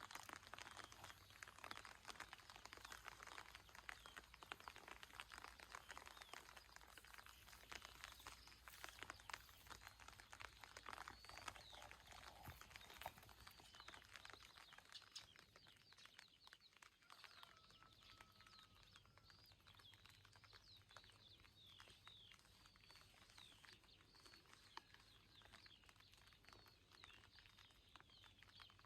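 Faint rain pattering, a dense run of small drips and ticks. From about halfway, small birds chirp repeatedly over it, with a few short whistled notes.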